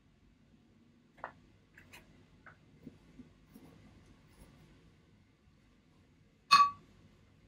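Faint rustles and small taps of a tissue being handled and wiped over the face close to the microphone, then one sharp, loud click with a short ring near the end.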